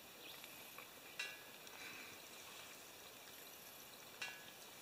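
Quiet woodland ambience, with two brief sharp clicks: one about a second in and one near the end.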